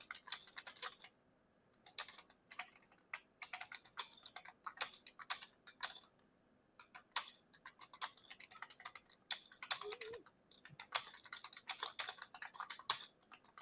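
Computer keyboard being typed on in quick runs of keystrokes, with short pauses about a second in and about six seconds in.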